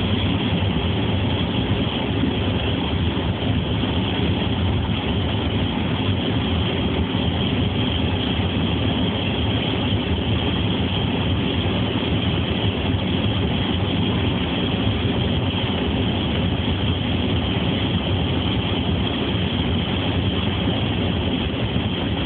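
Steady engine and road noise of a car being driven on a snowy road, heard from inside the cabin.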